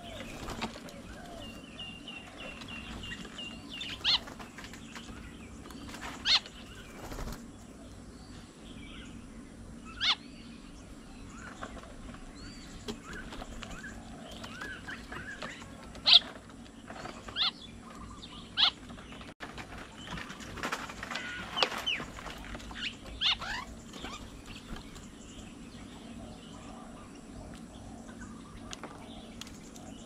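Mynas and other birds at a feeding table calling and flapping: short sharp calls and flutters every few seconds, a held whistled note a few seconds in, and a busier stretch of chattering about two-thirds of the way through.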